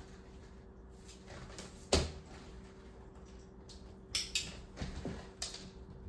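A woven mat lands on a laminate floor with a thud about two seconds in. Just after four seconds a training clicker gives its sharp double click (press and release), marking the cat for stepping onto the mat. A few softer taps and shuffles on the floor follow.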